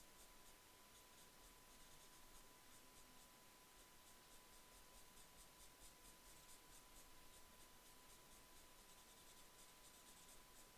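Faint, quick scratching strokes of a paper blending stump rubbing graphite into drawing paper.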